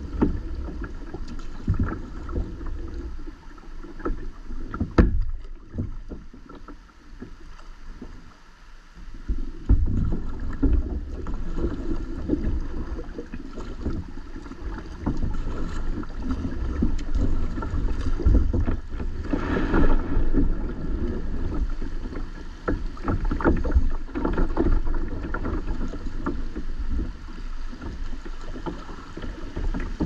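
Uneven low rumble of wind and water around a small fishing boat on a river, with scattered knocks and clunks. It drops quieter for about four seconds a few seconds in, then picks up again.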